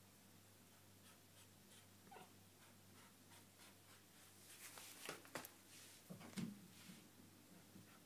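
Near silence: faint room hum, with a few soft ticks and rustles in the second half.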